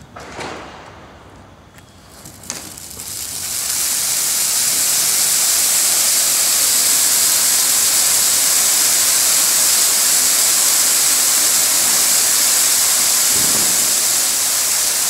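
Indian 'peacock' ground-fountain firecracker: faint sputtering with two small pops, then about three seconds in it catches and sprays sparks with a loud, steady rushing hiss that holds to the end.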